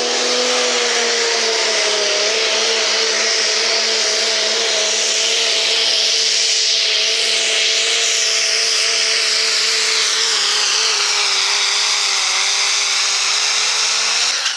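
Second-generation Dodge Ram's 5.9 Cummins diesel at full throttle under load, pulling a sled, held at a nearly steady high rev with a high turbo whistle over it. The sound drops off abruptly at the end as the pull finishes.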